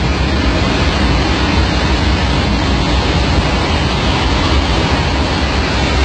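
Loud, steady rushing roar of air and engine noise inside an airliner cabin in flight, deepest at the bottom and unbroken.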